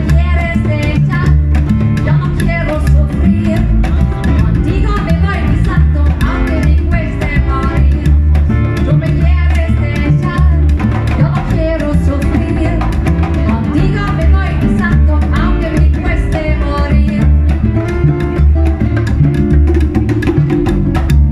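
Latin band playing a guaguancó: hand percussion and drums, guitar and bass under a sung melody.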